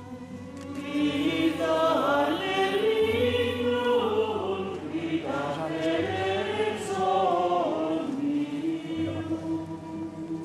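A mixed choir of men and women singing slow, sustained sacred polyphony, with the stone cathedral adding a long reverberation.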